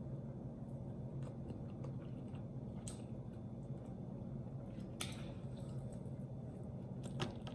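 A person chewing and biting into sauce-covered roast chicken, with small mouth clicks and smacks. There is a sharper click about five seconds in and a couple more near the end, over a steady low hum.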